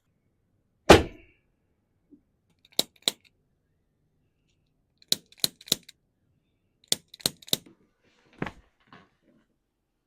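Sharp cracks and clicks of a chiropractic adjustment: one heavy crack with a thud about a second in, then quick clicks in groups of two and three, about three a second, and two softer ones near the end.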